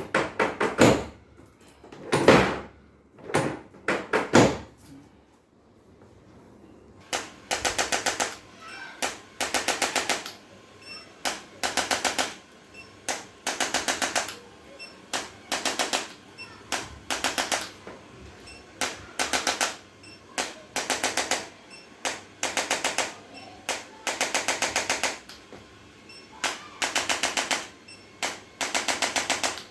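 Rapid mechanical tapping in short bursts, each about half a second to a second long, repeating roughly once a second. Before the tapping starts, a few louder single strokes come in the first five seconds.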